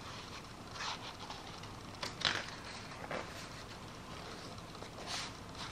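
Pages of a large hardcover art book being handled and turned: several soft paper swishes, the loudest about two seconds in.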